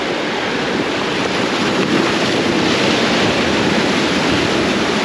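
Sea surf surging and washing over shore rocks in a continuous, steady rush of water: the wake waves of a passing fast ferry breaking at the angler's feet.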